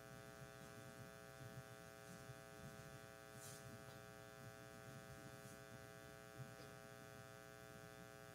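Near silence: a faint, steady electrical hum in the room or recording chain, with a couple of soft paper rustles as a sheet of notes is handled.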